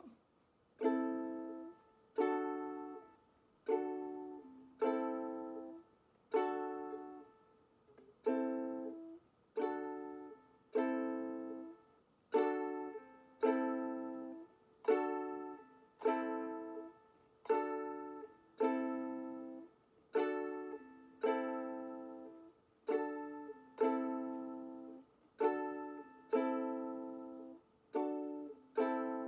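Ukulele strummed one chord at a time, switching back and forth between A minor and D, about one strum a second, each chord ringing out and fading before the next.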